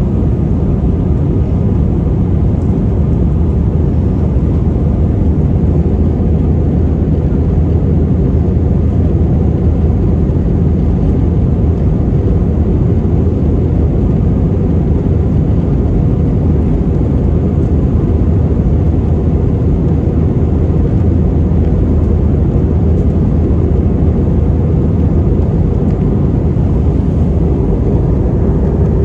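Steady in-cabin noise of an Airbus A320-family airliner climbing after takeoff: jet engines at climb thrust and rushing air make a deep, even rumble with a faint steady hum.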